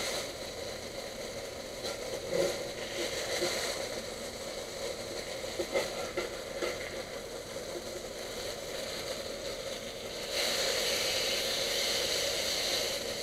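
Blackened redfish fillets sizzling and crackling in a hot skillet, the sizzle growing louder about ten seconds in.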